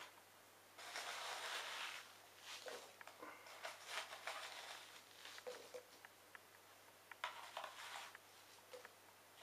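Faint rustling and scraping as fingers dig through cotton-wool packing in a clear plastic tub, with small clicks of the plastic. The longest rustle comes about a second in, followed by shorter bursts.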